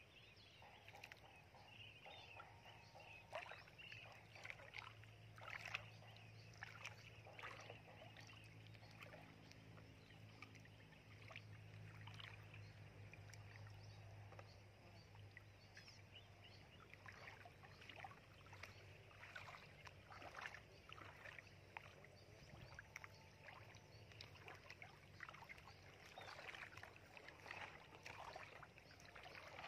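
Faint, irregular splashing and sloshing of shallow muddy water as children wade through it and move a plastic basin.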